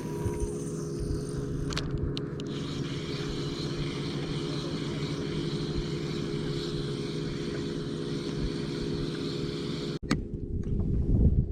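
Boat motor running at a steady, unchanging pitch. It breaks off suddenly near the end, followed by a louder low rumble.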